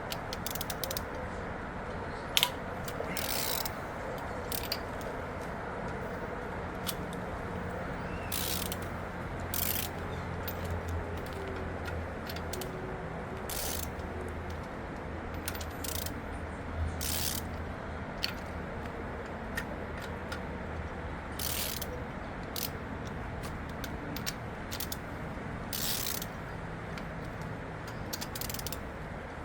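Socket ratchet clicking steadily as bolts on an LQ9 V8 engine are backed out, with sharp metal clanks every second or two.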